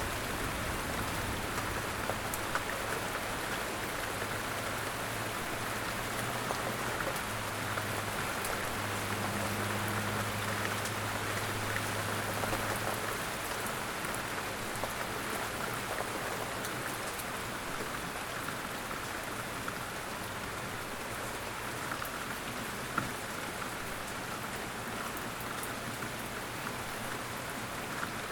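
Steady rain falling, a dense even patter of drops on surfaces. A faint low hum lies underneath for roughly the first half.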